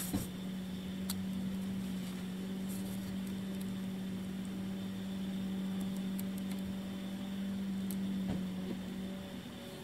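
Blue painter's masking tape crackling and ripping in short bursts as it is pulled off the roll and pressed along a motorhome's side. A steady hum from an unseen machine runs beneath it and eases off near the end.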